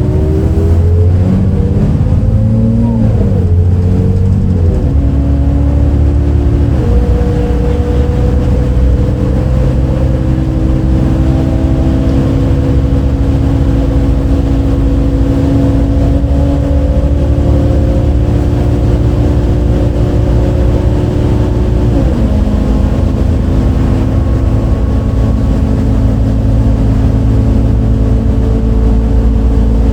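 MAN D0836 diesel engine and ZF Ecomat automatic gearbox of a 2008 MAN Lion's City A37 articulated bus, heard from inside, pulling away: engine pitch climbs and drops at each upshift, three in the first seven seconds, then a steady cruise with one more shift down in pitch a little past the middle. The engine has an unusual, odd-sounding note that the owner had never heard from a MAN before.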